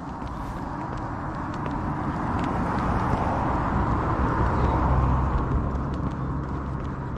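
A motor vehicle passing on the road, its tyre and engine noise swelling to a peak about five seconds in and then fading.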